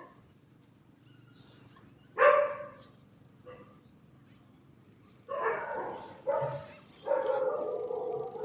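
A dog barking: one loud bark about two seconds in and a faint one a second later, then a run of three barks from about five seconds in, the last one drawn out.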